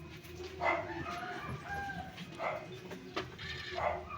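A dog barking several times at irregular intervals, with a steady low hum underneath.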